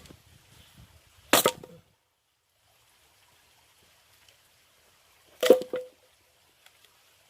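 Axe splitting oak firewood: two sharp, loud strikes about four seconds apart, each followed by a quicker, smaller knock.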